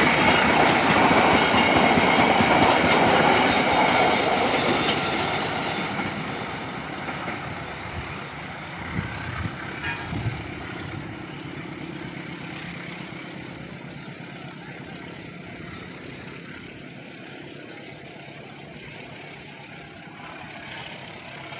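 Train passing close by, its wheels running on the rails, then fading steadily into the distance; a few short knocks come about nine to ten seconds in.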